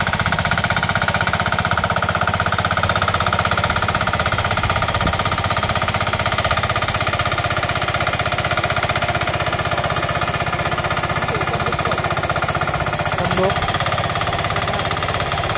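Two-wheel hand tractor (power tiller) engine running steadily with a fast, even chugging, pulling its cage wheels through a flooded rice paddy.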